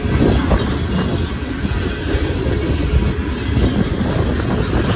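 Union Pacific coal cars rolling past, with a steady loud rumble of steel wheels running on the rails.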